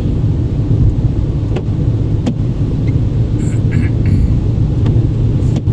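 Steady low rumble of a car driving, engine and tyre noise heard inside the cabin, with a few faint clicks.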